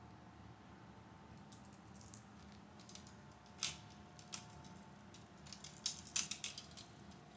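Marbles clicking and clattering through a marble run track: scattered light clicks at first, then a quick cluster of clicks about six seconds in.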